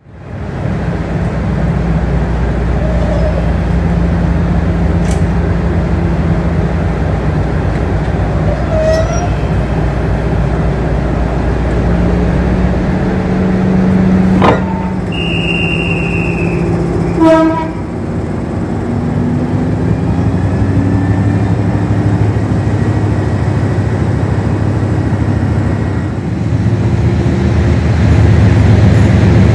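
Class 56 diesel locomotive's Ruston Paxman engine running with a steady low throb. Partway through there are a couple of sharp knocks and a short high whistle. The engine note then rises and grows louder near the end as it takes power.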